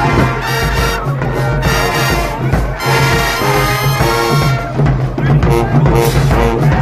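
Marching band playing a hip-hop tune: brass and drums over a loud repeating bass line from the low brass.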